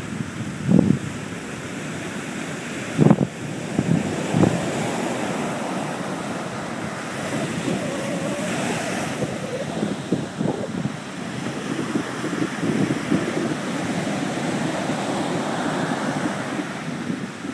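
Sea surf breaking and washing up a sandy beach in a continuous rushing wash, with wind buffeting the microphone in several low thumps, the loudest about one, three and four and a half seconds in.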